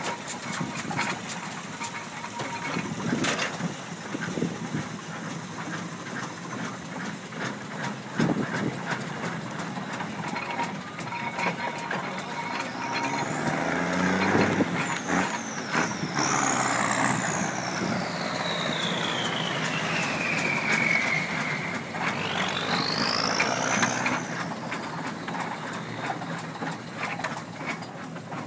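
Steam traction engine running as it is driven, with occasional clanks. Midway a high whine sweeps down and then back up over roughly ten seconds.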